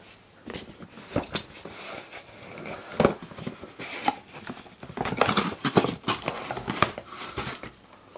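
A cardboard shipping box being opened by hand: a run of scrapes, rustles and knocks as the flaps are pulled open and the contents handled. It is loudest about three seconds in and again in a busier stretch in the second half.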